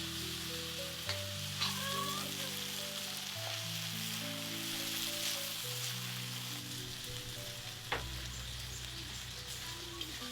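Food frying and sizzling in a pan, with a few sharp knocks of a utensil against the pan, over soft background music of slow held notes.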